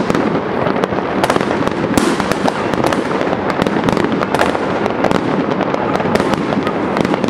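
Fireworks and firecrackers going off in a dense, continuous barrage: many overlapping bangs and crackles with no break.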